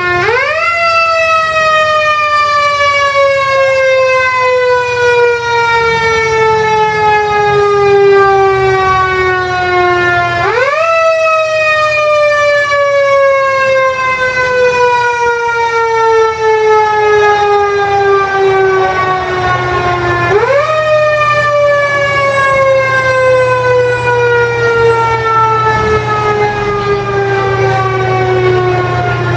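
Loud fire engine siren wailing: three cycles, each a quick rise followed by a slow fall in pitch lasting about ten seconds. A low steady rumble of the idling trucks runs underneath.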